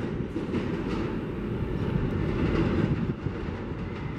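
R160A subway train pulling away into the tunnel: a steady low rumble of wheels on rail, with a few faint clicks.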